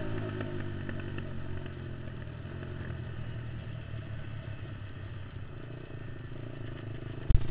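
Racing quad's engine running steadily at low revs while rolling slowly on ice. A loud sharp knock comes near the end.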